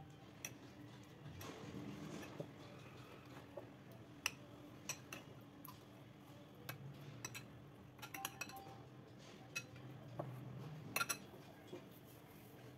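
Steel spoon clinking against a bowl as it is moved through curd-soaked vadas: light, irregular clinks, with two quick flurries of several in the second half.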